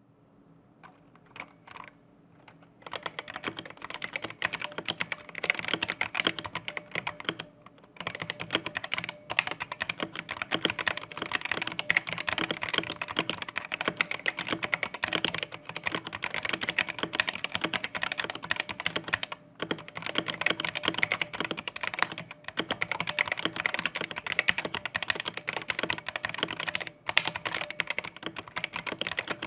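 Fast continuous typing on a Zowie Celeritas II keyboard with Adomax Flaretech A optical switches, thin doubleshot ABS keycaps, a painted steel plate and a roomy plastic case. It is a rapid run of clacking keystrokes that starts a few seconds in, with a few short pauses. The owner finds these switches quite pingy.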